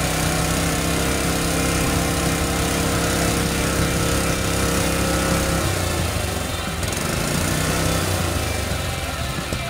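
Honda GX160 single-cylinder four-stroke engine running steadily on a homemade rotary cultivator, its note shifting about six seconds in.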